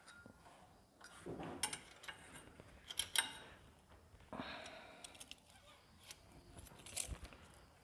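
Faint metallic clicks and clinks of hand tools working the valve tappet adjusters on a Bajaj Discover 125's cylinder head while the clearances are set, with a couple of soft rustles.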